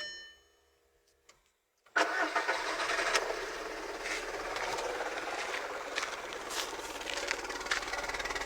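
A brief ringing tone, then about two seconds in a Volkswagen petrol engine starts and runs unevenly with irregular knocks and pops: the misfire of a cracked ignition coil pack.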